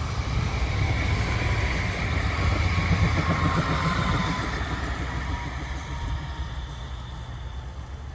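Tram passing on its track: a steady rumble of wheels and running gear, loudest about three seconds in, then fading as it moves away. A faint high whine sounds through the middle of the pass.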